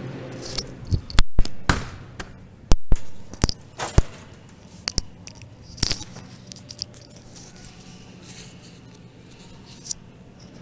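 Clicks, knocks and scrapes of groceries being handled at a shopping cart beside a glass-doored refrigerated case, mostly in the first four seconds with a few more later, over a faint low hum.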